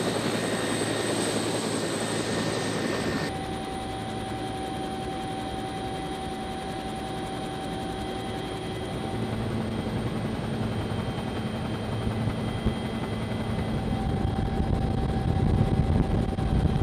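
Bell 212 Twin Huey helicopter running, its turbine whine over steady rotor noise. About three seconds in the sound cuts abruptly to a quieter, steadier engine and rotor drone heard from inside the cabin in flight.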